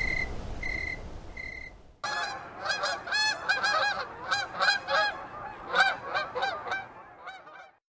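A flock of geese honking, many short calls overlapping in quick succession, thinning out and fading away near the end. Before that, for about two seconds, a short steady note repeats about every two-thirds of a second over a low rumble, then cuts off abruptly.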